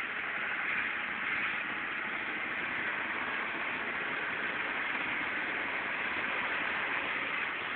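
Steady rushing noise of a moving bus, engine, road and wind noise together, with no distinct events.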